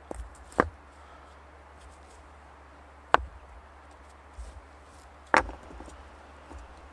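Lichen-covered stones knocking against one another as they are set into a stone fire ring: three sharp clacks, at about half a second, three seconds and five and a half seconds in, with softer knocks between.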